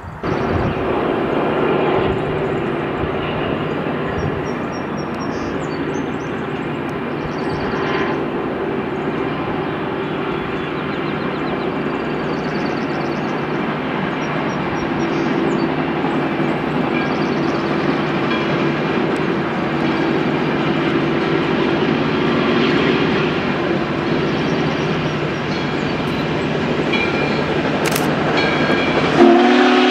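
Southern Railway 2-8-0 steam locomotive No. 630 working toward the camera, its exhaust a steady, dense rushing sound. Near the end its steam whistle starts to blow loudly.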